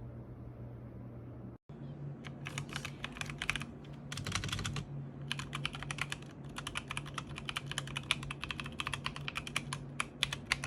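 Typing on a Logitech G715 mechanical keyboard: rapid runs of key clicks, each lasting a second or more with short pauses between, starting about two seconds in, over a low steady hum.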